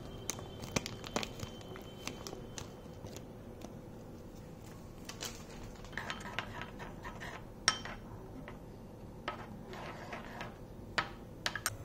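Silicone spatula stirring and scraping a thick sauce mixture in a ceramic bowl, with scattered light clicks and taps against the bowl. The loudest tap comes near the middle.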